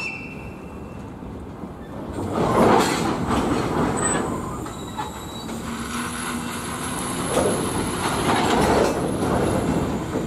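Freight train of open gondola wagons rolling past on the rails, with wheels and bogies clattering. The clatter swells louder twice as groups of wheelsets go by, over a faint high-pitched wheel squeal.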